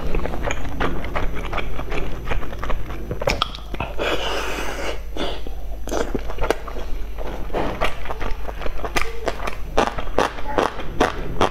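Close-miked chewing of a soft boiled pork-and-chive dumpling: a steady run of quick wet mouth clicks and smacks. A short breathy rush comes about four seconds in, all over a steady low hum.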